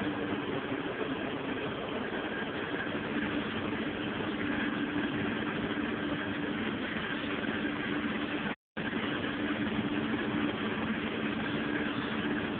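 Case MX170 tractor engine running steadily, heard from inside the cab as a constant hum. The sound cuts out completely for a split second about two-thirds of the way through.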